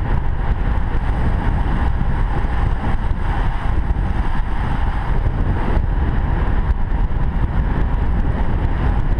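Wind rushing over a helmet camera's microphone while riding a road bike: a steady, loud rumbling noise with no breaks.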